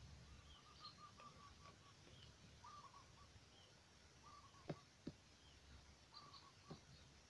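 Near silence with faint, repeated short bird calls, each a quick run of chirps, plus a few faint clicks.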